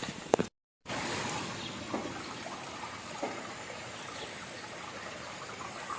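Steady rushing of flowing water, after a few brief knocks and a short cut in the sound about half a second in.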